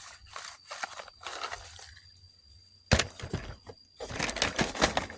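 Crackly rustling from handling, with one sharp knock a little before three seconds in and denser crackling from about four seconds in.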